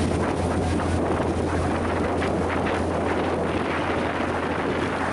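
Charter fishing boat under way: a steady low engine hum with wind buffeting the microphone.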